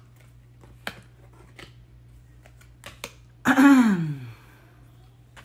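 Tarot cards being handled: a few light clicks and taps. About three and a half seconds in comes a woman's drawn-out wordless vocal sound, like a murmured 'ooh', that falls in pitch.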